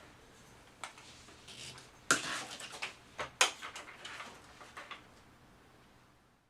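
A few sharp knocks and a spell of clattering: one knock about a second in, a louder clattering run about two seconds in, and another sharp knock about three and a half seconds in, trailing off after about five seconds.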